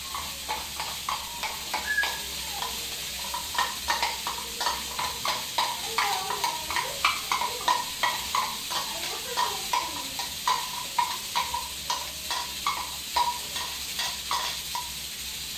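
A utensil repeatedly clinks and scrapes against a container, about two light strikes a second, over a steady hiss.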